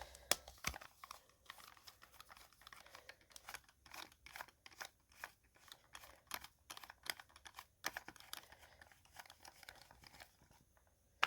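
Light, irregular clicking and scraping of a hand driver and small plastic parts being handled while screws are taken out of an RC car's plastic receiver box, with a few sharper clicks.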